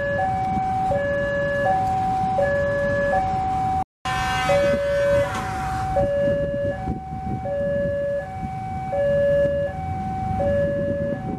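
Electronic two-tone railway level-crossing warning alarm sounding a steady alternating high–low tone over the low rumble of a CC 203 diesel-electric locomotive running past. The sound drops out briefly about four seconds in, and a short rising whine follows.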